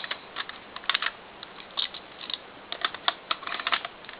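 Plastic Lego parts of a home-built gumball machine clicking and rattling as they are handled, a string of light, irregular clicks.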